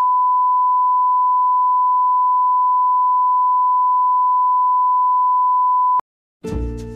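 Steady 1 kHz line-up test tone that plays with the colour bars and cuts off abruptly with a click about six seconds in. After a brief silence, music starts near the end.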